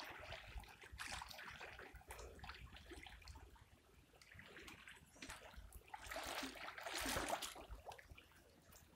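Shallow river water sloshing and splashing around a wading angler's legs as he plays a hooked fish, in two soft surges: one at the start and a louder one around six to seven seconds in.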